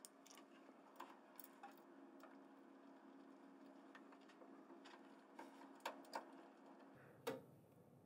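Near silence with a handful of faint, scattered clicks: a screwdriver and rack screws against the metal rack as a patch panel is screwed down, the clearest clicks near the end.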